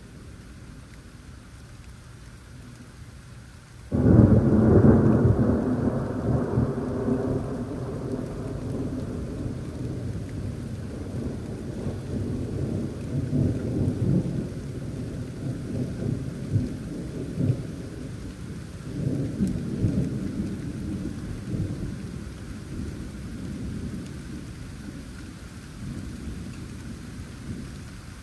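Steady rain, then about four seconds in a sudden, loud clap of thunder that rumbles on, swelling again several times and slowly dying away.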